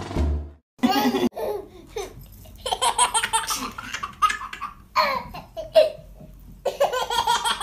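A baby laughing in several high-pitched bursts, the first about a second in.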